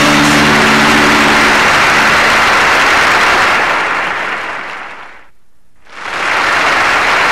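Studio audience applauding as the last held notes of a song die away. The applause fades down about four seconds in and comes back up to full level a second and a half later.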